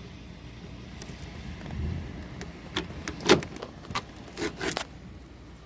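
Clicks, knocks and rattles of a window's side panel being worked by hand to get it open, with one sharp knock loudest about three seconds in, over a steady hiss of rain.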